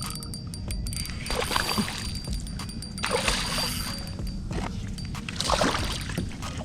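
Water splashing in three bursts as a hooked redfish thrashes at the surface beside the kayak, over a steady low rumble of wind on the microphone.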